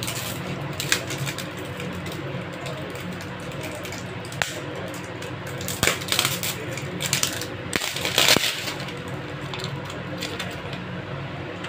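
A plastic water-filter cartridge handled: several sharp clicks and knocks of hard plastic, with a stretch of rustling and crinkling of its plastic wrapping in the middle, over a steady low hum.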